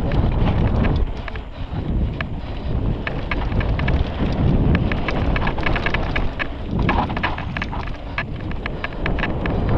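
Mountain bike ridden fast over rough dirt trail: wind rumbles on the microphone while the bike gives off a dense run of rapid clicks and rattles over the bumpy ground.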